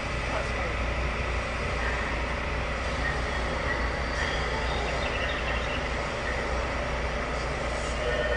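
Tokyu 2020-series electric train running, heard from inside the car: a steady low rumble from the wheels on the track, with flat whining tones from its Mitsubishi full-SiC MOSFET VVVF inverter and traction motors. Near the end a new set of steady tones comes in.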